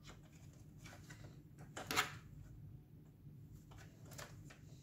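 Faint handling noise of multimeter test probes and sensor wires being worked against a circuit-board connector, small clicks and rustles with one sharper click about two seconds in.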